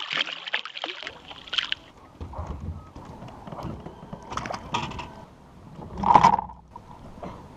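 A blue catfish splashing and thrashing at the surface for the first second or so, then knocks and handling noises in a metal boat over a low wind rumble, the loudest knock about six seconds in.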